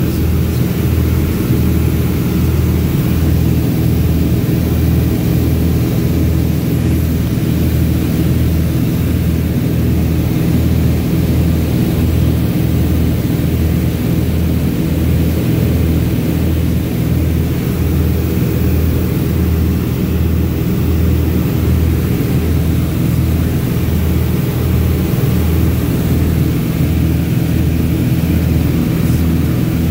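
Single-engine light airplane's engine and propeller droning steadily, heard from inside the cabin, with a slow, even throb in the low hum.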